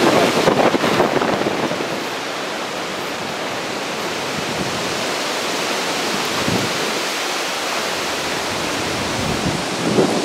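Hurricane wind with storm water: a steady rushing noise. For the first second or so it is louder, with gusts buffeting the microphone, then it settles to an even hiss.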